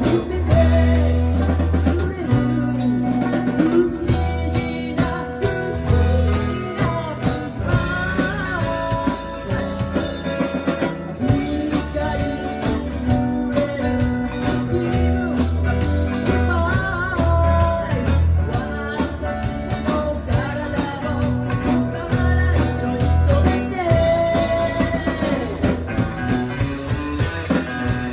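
A band playing a rock song: electric guitar, bass and drum kit with a steady beat, and a voice singing over them.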